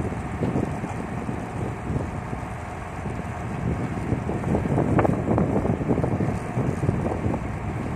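Hitachi excavator's diesel engine working, with wind buffeting the microphone; the rumble grows louder about halfway through.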